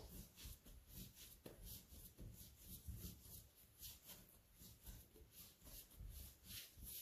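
Faint soft thuds and rubbing of a yeasted bread dough being kneaded by hand on a floured steel worktop, pressed and rolled about two to three times a second.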